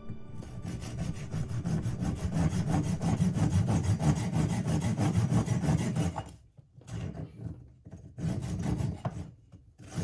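Saw cutting through wood: a steady scraping cut for about six seconds, then a few shorter strokes with brief pauses between them.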